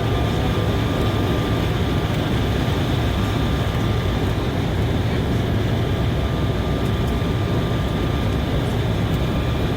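Steady cabin noise of an Embraer 190 airliner in flight: the low roar of its twin turbofan engines and the airflow, unchanging throughout, with a thin steady high tone above it.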